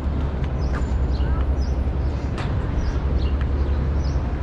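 Outdoor city ambience: a steady low rumble with small birds chirping in short, frequent calls, and one sharp click about two and a half seconds in.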